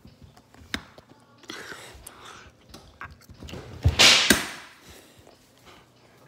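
Phone handling noise as the phone is swung about: a sharp click about a second in, light rustling, and a loud, brief rustling whoosh about four seconds in.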